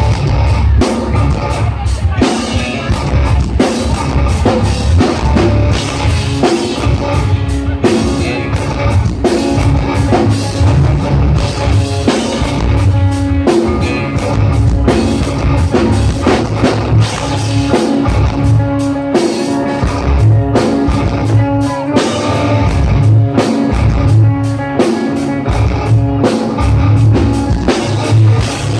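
Live rock band playing loud: a drum kit keeping a steady beat under electric guitars and bass.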